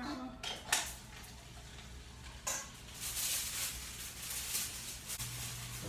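Plastic grocery bags rustling and crinkling as they are handled on a kitchen counter, with a sharp knock about a second in and another about two and a half seconds in.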